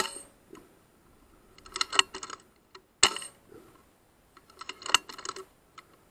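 Two shots from a .177 FX Wildcat Mark III Compact air rifle, one at the very start and one about three seconds in, each a sharp crack. About two seconds after each shot comes a quick run of small metallic clicks as the action is cycled to load the next pellet.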